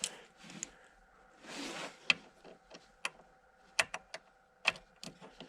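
A brief scrape and a few sharp small clicks as a replacement ignition lock cylinder for a 2008 Ford Escape is lined up and worked into its housing.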